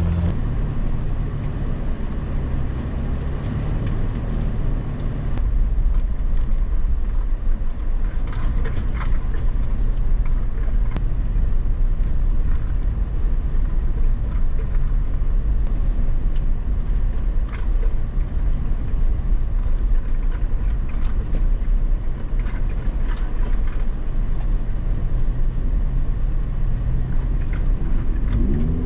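Off-road vehicle driving on a dirt trail: a steady low engine and tyre rumble with scattered clicks and rattles.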